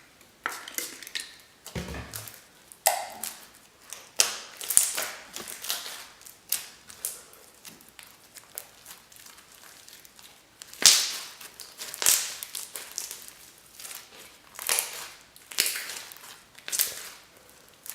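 Hands squeezing and pressing a creamy slime full of crushed foam pieces and foam beads, giving irregular crunching, crackling and popping clicks, the sharpest crackle about eleven seconds in.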